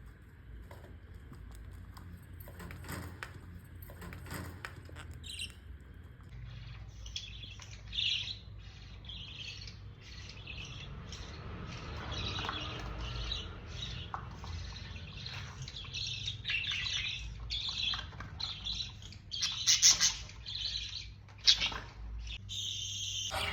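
Pet budgerigars chirping and chattering, after a few seconds of light clicks and taps. A few calls stand out louder near the end.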